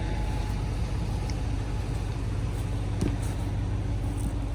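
Engine of a digging machine running steadily, a low even hum, with one short click about three seconds in.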